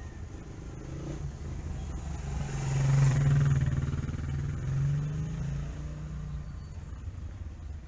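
A motor vehicle's engine running, growing louder to a peak about three seconds in and again near five seconds as it passes close by, then fading.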